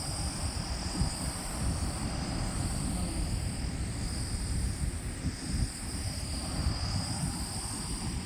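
Wind buffeting the microphone in an uneven low rumble, over a steady high-pitched chirring of insects.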